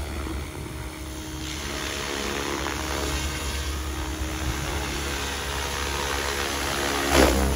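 SAB Goblin RAW 500 electric RC helicopter flying low: steady drone of the spinning rotor blades and motor. About seven seconds in there is a brief, louder rush of blade noise as it swings close.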